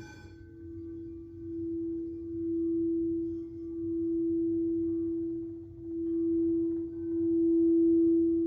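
Singing bowl struck once at the start, then ringing on in one steady low hum that swells and dips in slow waves and grows louder.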